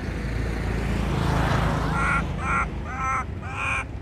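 Four short, harsh animal calls about half a second apart in the second half, over a low, steady background rumble.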